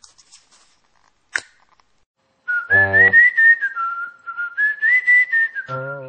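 A person whistling a short tune: one clear melody line stepping up and down, starting about two and a half seconds in, with low notes sounding under it twice. A sharp click comes just before the whistling.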